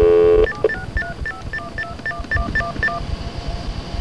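Touch-tone (DTMF) dialing over a phone line: a loud steady tone ends about half a second in, then about a dozen quick keypad tones at roughly five a second stop near three seconds in. The tones are a new destination number being keyed in.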